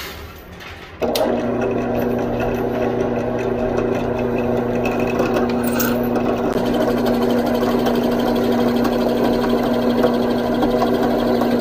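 Electric drill press starting up about a second in and running with a steady motor hum, its bit boring pin holes through a wooden knife-handle scale.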